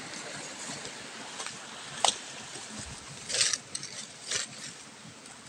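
Handling and rustling noise over a faint steady outdoor background: a sharp click about two seconds in, then brief brushy rustles, as a handheld phone camera is moved through leafy undergrowth.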